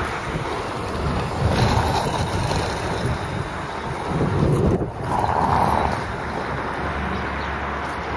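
Wind buffeting the microphone, over a low rumble of diesel machinery, with louder gusts about two seconds in and again past the middle.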